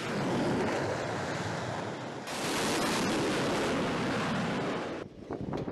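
Steady rushing wind noise across an aircraft carrier's flight deck at sea. The noise shifts in character about two seconds in and cuts off sharply about five seconds in.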